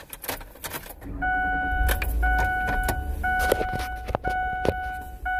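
A car's dashboard warning chime sounding in long, even tones about once a second, starting about a second in as the engine starts up with a low rumble. Knocks and rubs from the phone being handled run through it.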